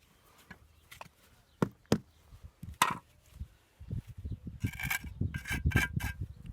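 Three sharp, separate knocks, then about four seconds in a continuous rough rattling and scraping of hard material that carries on.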